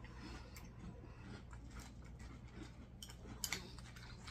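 Faint scattered clicks of a spoon in a cereal bowl while eating cereal with milk, over a low steady hum.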